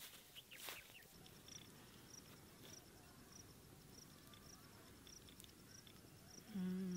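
An insect, likely a cricket, chirping faintly in a steady high-pitched rhythm of about two and a half chirps a second. A few soft clicks come in the first second. A man's voice sounds briefly near the end, falling in pitch, and is the loudest sound.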